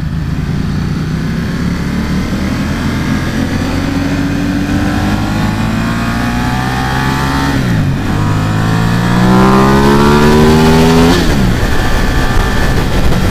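Ducati XDiavel's 90-degree L-twin engine under hard acceleration. The pitch climbs through the revs, drops with an upshift about eight seconds in, climbs again and drops with a second upshift near eleven seconds, then holds steady.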